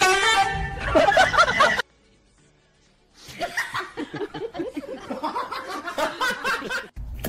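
A person laughing and snickering in short choppy bursts. It starts with a loud burst, which breaks off into about a second of silence before the snickering resumes and runs on.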